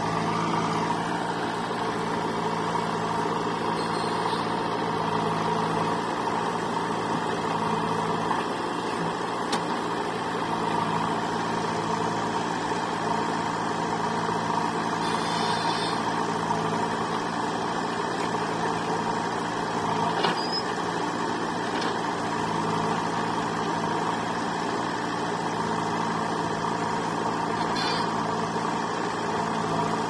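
Diesel engines running steadily: a JCB 3DX backhoe loader working its backhoe arm to load soil, with a tractor idling alongside. A few faint clanks come now and then.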